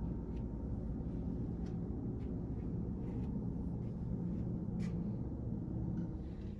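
Steady low room hum with a few faint, light clicks.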